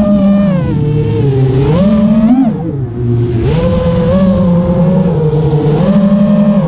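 Brushless motors of an Eachine 250 Pro racing quadcopter whining, the pitch rising and falling with the throttle. The pitch and level dip about two and a half to three and a half seconds in, then the motors climb back to a steadier, higher whine.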